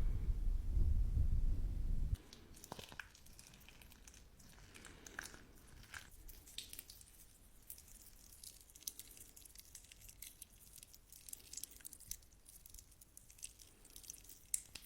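A loud low rumble for the first two seconds, then slime being squeezed and stretched: quiet, irregular sticky crackles, pops and squishes.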